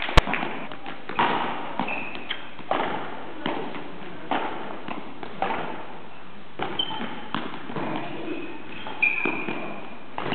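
Footbag net rally: irregular thuds and taps of the players' kicks and footsteps on the court floor, echoing in a large sports hall, with a few short high squeaks and a sharp click just after the start.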